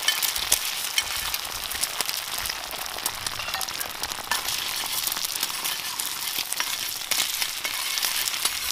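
Eggs sizzling in hot oil in a flat metal pan over a wood fire, with a spoon scraping and turning them and many small crackling pops.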